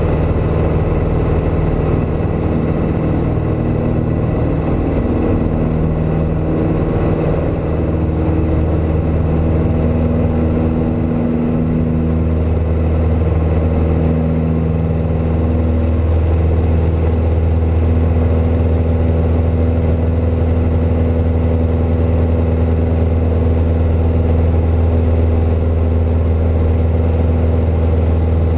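Piper PA-28's single piston engine and propeller running at takeoff power during the takeoff roll and lift-off, heard inside the cockpit as a steady drone. It grows a little stronger about halfway through.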